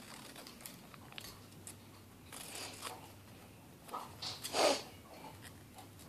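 Scissors cutting paper in short snips, with a longer, louder cut about four and a half seconds in.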